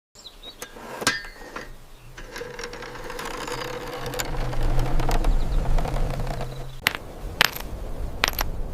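A small motor whirs steadily for about five seconds, growing louder, and cuts off suddenly. A series of sharp taps follows, the kind made in small-scale woodworking repair.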